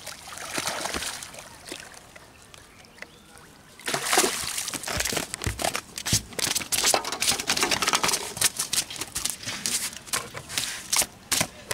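A hooked carp splashing at the water's surface. From about four seconds in comes a quick, irregular run of wet slaps and knocks, the fish flapping on the wet concrete steps.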